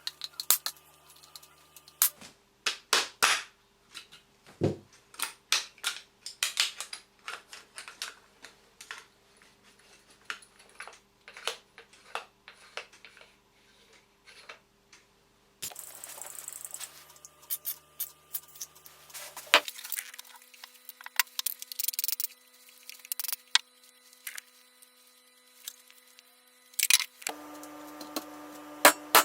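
Irregular sharp clicks, taps and knocks of parts and tools being handled, over a faint steady hum. The background changes suddenly several times.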